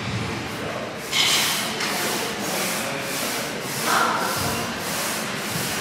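Salt shaker being shaken hard to get salt out, a gritty rhythmic rattle of about three shakes a second, starting about a second in.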